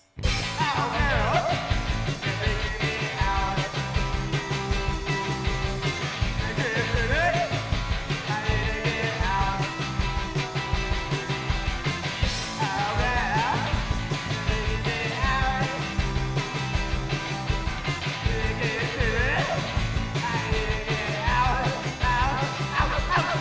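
Live rock and roll band playing: electric guitar, electric bass and drum kit, with a shouted lead vocal. The music cuts in abruptly at the start.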